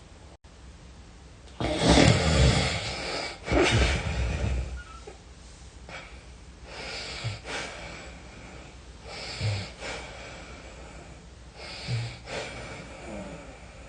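Heavy snoring from a sleeping person, rough and breathy: two loud snores about two and four seconds in, then softer snoring breaths roughly every two and a half seconds.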